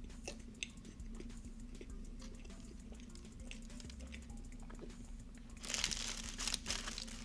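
Soft mouth clicks of chewing, then, nearly six seconds in, a paper bakery wrapper crinkling as hands fold it back from a brownie.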